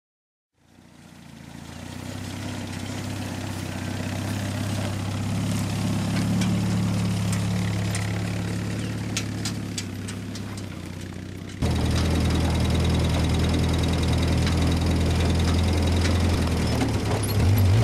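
Old flat-fender jeep's engine running steadily as the jeep drives through tall grass, fading in at the start, with a few sharp clicks midway. About two-thirds through it jumps abruptly louder and closer, running steadily at an idle-like pace.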